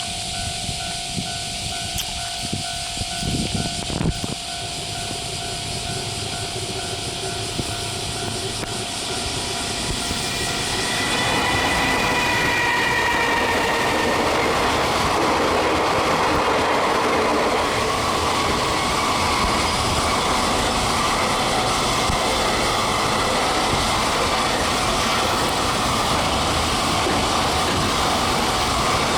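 JR Freight EF210 electric locomotive passing with a long container freight train: its inverter motors whine briefly as it goes by about eleven seconds in, then the container flatcars roll past in a long steady rumble with clickety-clack from the rail joints.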